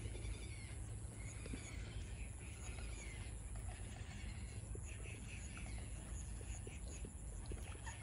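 Distant calls from a colony of waterbirds nesting in trees across water, a busy mix of short chattering calls, thickest in the first few seconds, over a steady low rumble.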